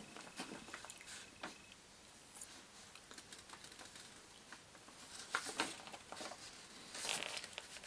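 Quiet rustling and crinkling of paper sheets being handled, in short scattered rustles, loudest about five and a half seconds in and again near the end.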